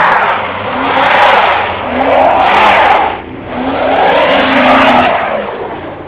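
A plow-equipped pickup truck's tires spinning in packed snow while its engine revs in repeated surges, rising and falling; the truck is stuck and the wheels are not getting grip.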